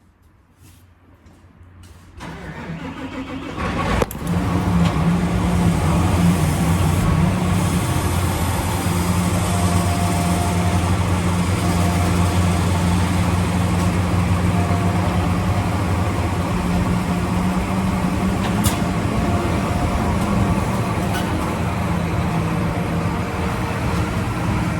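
A vehicle engine starting: it turns over about two seconds in, catches about four seconds in, and then runs steadily at idle.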